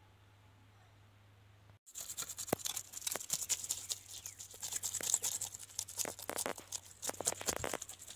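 A knife scraping scales off a fresh fish in rapid, repeated scratchy strokes, starting about two seconds in.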